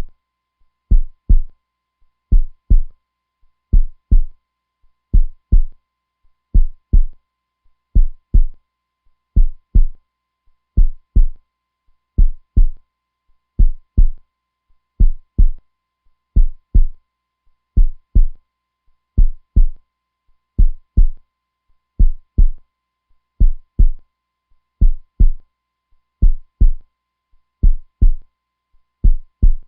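Heartbeat sound: slow, steady lub-dub double thumps, a pair roughly every second and a half.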